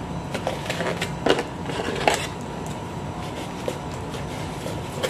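Cardboard packaging scraping and rustling as a small boxed clip-on microphone is slid out of its corrugated cardboard sleeve, with a few sharp taps, the clearest about a second and two seconds in.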